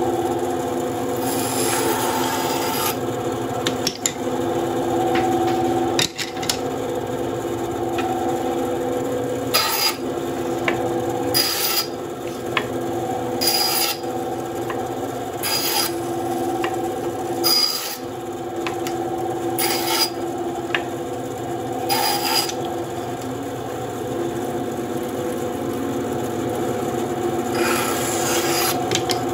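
WEN 3939 9-inch bandsaw with a 1/4-inch blade running steadily and cutting through wood. There is a longer cut near the start and another near the end, and in between a run of short cuts about every two seconds.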